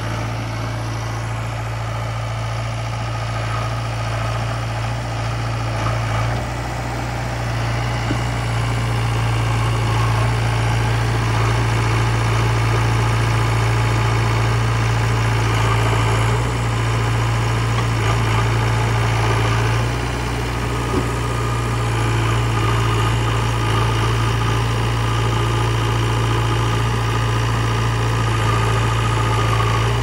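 Diesel engines of a JCB 3DX backhoe loader and a Powertrac Euro 439 tractor idling side by side with a steady low hum, growing a little louder about seven seconds in.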